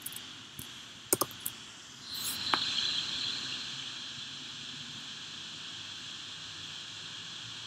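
A few sharp computer mouse clicks about a second in and again a little later, over a steady hiss that rises about two seconds in and then holds.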